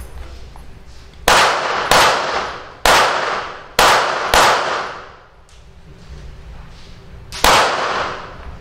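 Six pistol shots at an uneven pace, each followed by a short ringing echo. Five come in quick succession from about a second in, then a last one near the end.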